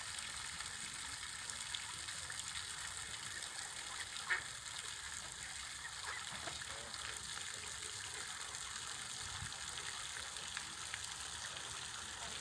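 Water birds calling now and then in short notes over a steady rushing hiss of water, with one louder call about four seconds in.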